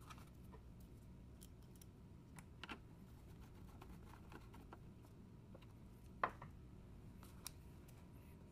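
Faint, sparse clicks and light taps of a screwdriver and small screw on the sheet-metal chassis of a car head unit as a forgotten screw is driven in, with the sharpest click about six seconds in.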